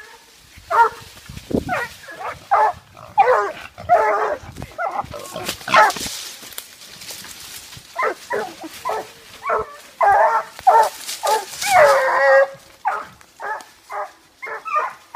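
A dog barking and yipping over and over in quick runs of short barks, with a short pause about seven seconds in.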